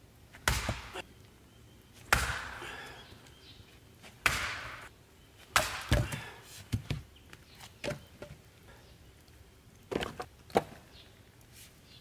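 An axe splitting firewood rounds on a chopping block: a series of sharp chops about two seconds apart, the loudest trailing off briefly, then lighter knocks of wood near the end.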